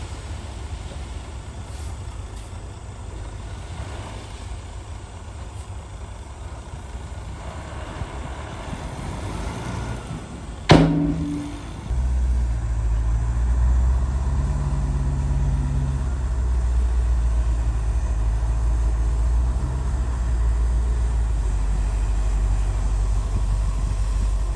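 Heavy diesel earthmoving machinery running, with a sharp metallic bang about eleven seconds in; right after it the engine runs louder and steadier, as if under load.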